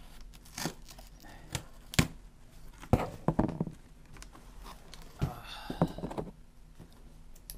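Scissors cutting through packing tape on a small cardboard box, then the box being handled and opened, its cardboard flaps rustling and tearing, with a few sharp knocks along the way.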